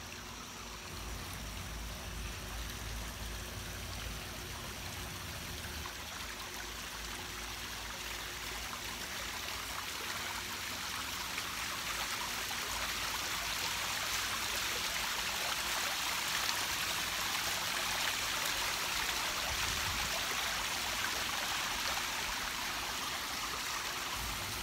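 Water bubbling up out of several ceramic urns in an urn fountain and trickling and splashing down their sides into a gravel basin: a steady splashing that grows louder over the first half, then holds.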